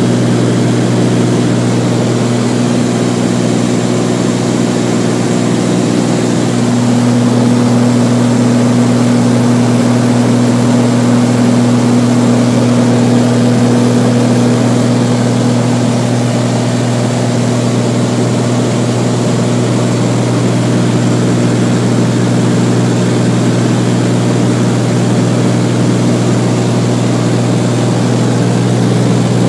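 Beechcraft Bonanza's piston engine and propeller droning steadily at cruise, heard inside the cabin. The tone shifts slightly about seven seconds in.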